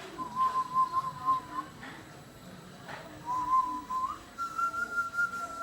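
A father's soft whistling to lull his baby son to sleep, in long held notes: a slightly wavering note for about a second and a half, a pause, then a note that slides upward and settles into a higher, steady held note near the end.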